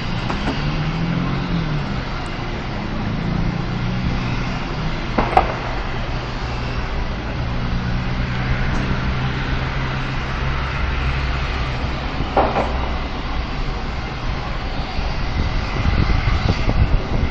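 Steady distant road-traffic rumble with a low engine hum. Two short sharp cracks come about five and twelve seconds in, and wind buffets the microphone near the end.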